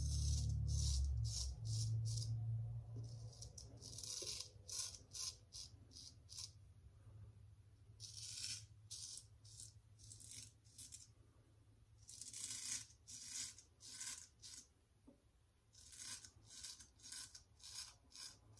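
Straight razor scraping stubble through shaving lather on the cheek in short, quick strokes, coming in several bursts with pauses between them.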